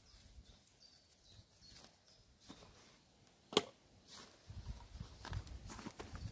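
Faint outdoor background with one sharp click or snap about three and a half seconds in, followed by irregular low thumps and rustling, like someone handling things on the ground close by.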